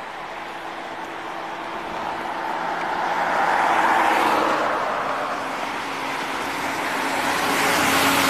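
Cars passing on a multi-lane road, the rush of tyres and engines swelling as each draws near and fading as it goes by. One passes about four seconds in and another near the end.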